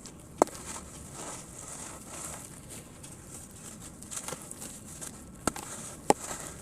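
Sand cement crumbling and dissolving in water, a steady fizzing crackle, broken by three sharp clicks: one near the start and two close together near the end.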